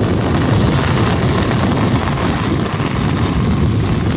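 Heavy rain with strong wind buffeting the microphone: a loud, steady, deep rushing with the hiss of the downpour above it.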